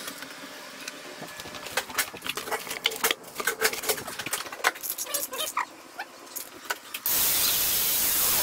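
Clicks and clatter of small parts and cables being handled. About seven seconds in, an angle grinder switches on and runs steadily, much louder than the handling.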